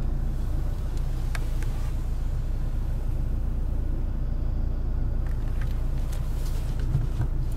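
Lada Granta's 1.6-litre four-cylinder engine idling steadily, heard inside the cabin as a low, even hum, with a few faint clicks.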